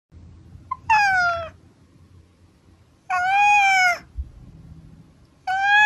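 Domestic cat meowing three times, about two seconds apart, each meow lasting under a second.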